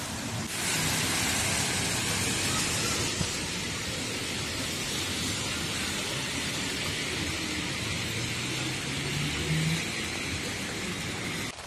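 Steady hiss of rain on a waterlogged road, mixed with car tyres swishing through standing water. A car engine hum rises slightly near the end.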